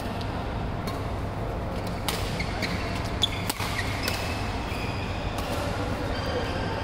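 A steady low hum with scattered sharp knocks, about eight of them at uneven intervals, and short high squeaks.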